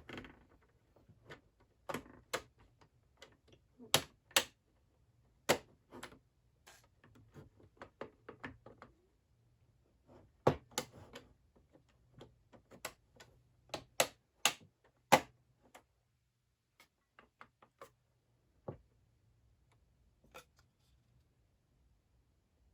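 Plastic buttons on a McFarlane Toys Riddler puzzle box being pressed and clicking in, with the box handled: a string of irregular sharp clicks and taps that thins out after about sixteen seconds to a few single clicks.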